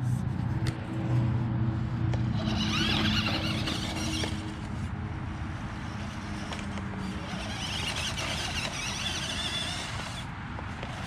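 Radio Shack Enforcer RC truck's stock electric motor and gearbox whining in low gear as it drives over leaf litter and dirt. The high-pitched whine comes in two spells, about two seconds in and again about seven seconds in.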